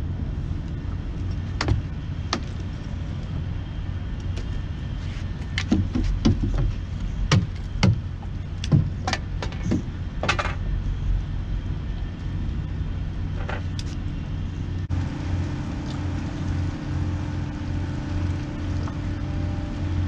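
Steady low engine drone from a boat, with scattered sharp knocks and clatter of fishing gear being handled on the boat's deck. About three quarters of the way through, the drone changes and picks up a higher steady tone.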